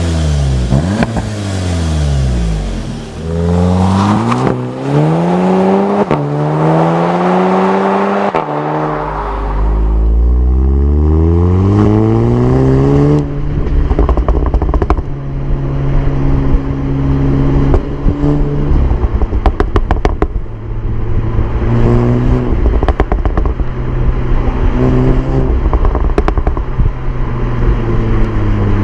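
SEAT Leon Cupra 300's turbocharged 2.0-litre four-cylinder engine revving up and down several times. From about thirteen seconds in it holds a steadier note with many sharp crackles from the exhaust.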